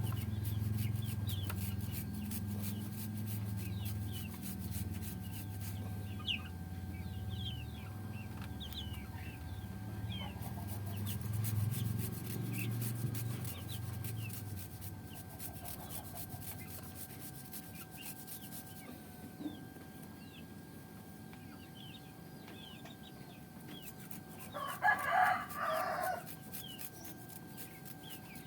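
A rooster crows once, about 25 seconds in, the loudest sound here. Underneath are many small high chirps and, in the first half, a low rumble.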